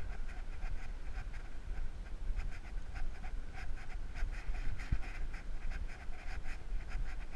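A dog panting close up in a quick, even rhythm, over a steady low rumble.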